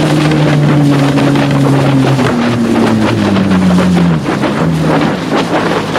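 Flipsky 70165 brushless electric motor driving a SUP board at speed: a steady whine that drops in pitch in steps from about two seconds in, over water rushing and spraying and wind on the microphone.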